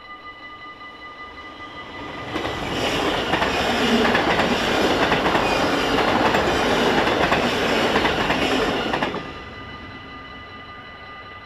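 Level-crossing warning bells ring steadily while a double-deck electric passenger train passes at speed. Its wheel-and-rail noise comes up about two seconds in, dominates for about seven seconds, and cuts off abruptly, leaving the bells ringing alone.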